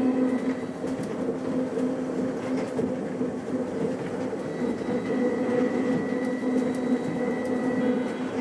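A Uijeongbu Light Rail rubber-tyred automated car running along its elevated guideway, heard from inside the car: a steady rumble with a constant electrical hum. A thin higher whine grows stronger about halfway through.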